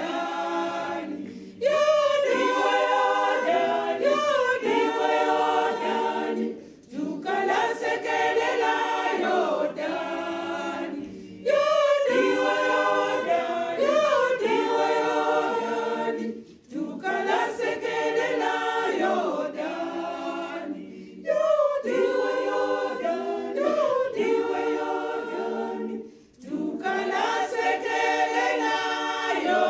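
A choir singing a hymn unaccompanied, in phrases of about five seconds with a short breath-break between each.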